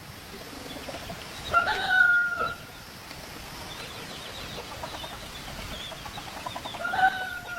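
A rooster crowing twice: one held crow about a second and a half in, and another starting near the end.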